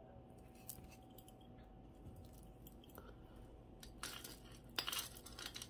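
Costume jewelry being handled and rummaged through: faint scattered clicks at first, then louder clinking and rustling about four seconds in.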